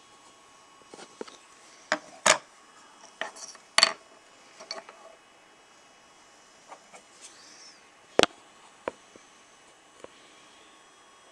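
Small carved wooden pipe tamp tools being handled and set down on a hard tabletop: a string of sharp clicks and clacks, the loudest about two, four and eight seconds in.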